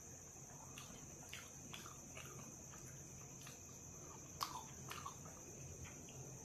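Soft eating sounds of chicken curry and roti being chewed: scattered small wet clicks and smacks, the sharpest about four seconds in. A steady high-pitched whine runs underneath.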